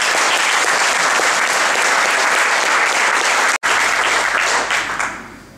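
Audience applauding, a dense steady clapping that fades away near the end, with a split-second dropout in the sound about three and a half seconds in.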